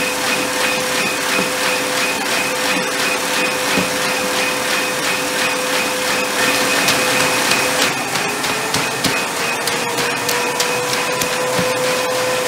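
Industrial UV inkjet printing module running on its vacuum table: a steady whirring hum with rapid, irregular small clicks. About eight seconds in, a second tone joins and slowly rises in pitch.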